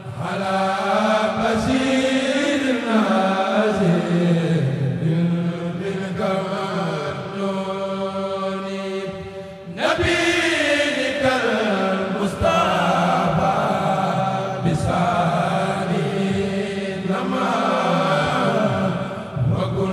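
A kourel, a chorus of voices, chanting a Mouride khassida in Arabic in long, gliding melodic phrases. There is a short break about halfway through before the next phrase begins.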